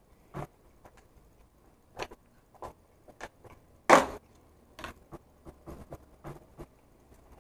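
Plastic cottage cheese tub being handled and opened: scattered light clicks and plastic rustles, with one louder sharp click about four seconds in.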